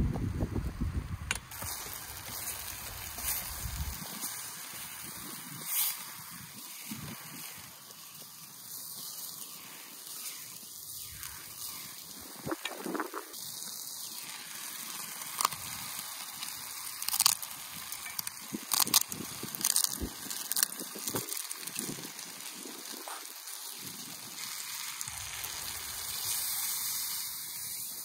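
Chopped tomatoes and onion sizzling and crackling in an aluminium camp pot over a stove, with scattered sharp clicks. Wind buffets the microphone in the first few seconds.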